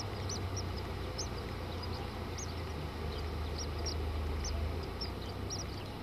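Nestlings in the nest cheeping in short, high-pitched peeps, about two or three a second, over a low steady rumble.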